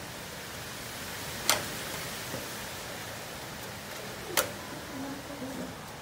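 Strong wind blowing in a steady rush, with two sharp knocks about three seconds apart, the first about a second and a half in.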